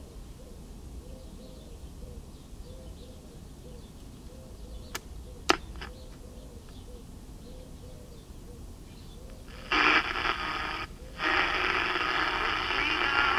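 Kensington 8-transistor AM pocket radio under test on bench power: near-quiet with a couple of small clicks about halfway, then nearly ten seconds in, loud static and station noise from its small speaker, cutting out briefly and coming back. The set was reported to have poor sensitivity.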